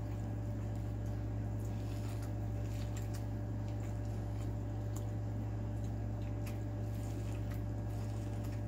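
A person biting and chewing boiled corn on the cob close to the microphone: scattered faint clicks and mouth sounds over a steady electrical hum, which is the loudest thing heard.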